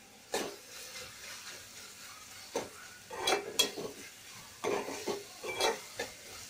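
A steel spoon scrapes and stirs chopped onions frying in oil in an aluminium pot, with a soft sizzle underneath. There are about half a dozen separate scrapes against the pot, the loudest about three and a half seconds in.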